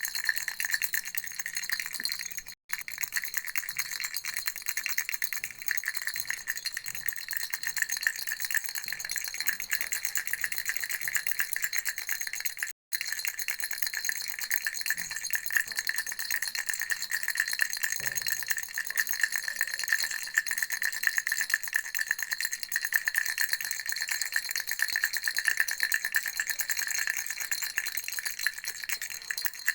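A baby rattle shaken without pause, a fast, dense rattling of small beads, cut off very briefly twice, about three seconds and about thirteen seconds in.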